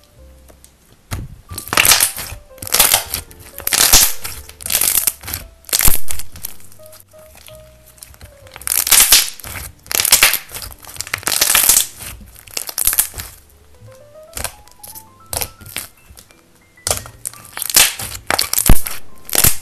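Soft slime squeezed and pressed by hands, crackling and popping in dense bursts, with scattered sharp pops near the end. Quiet background music runs underneath.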